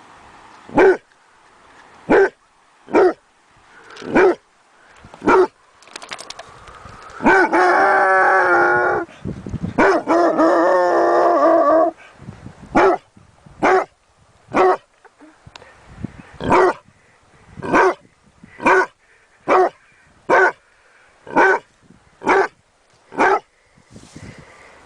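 Dog barking in single sharp barks about a second apart, with two long drawn-out howls about seven and ten seconds in. Then comes a steady run of barks, roughly one a second.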